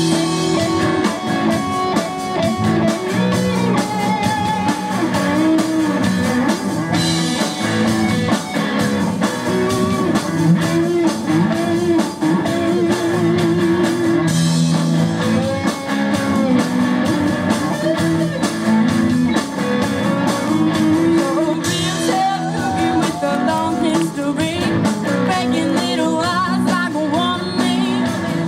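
Rock band playing live, with electric guitar prominent over bass and drums.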